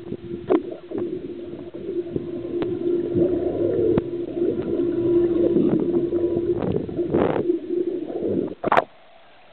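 Muffled underwater sound in a swimming pool: bubbles gurgling and clicking over a steady low hum. It cuts off abruptly near the end.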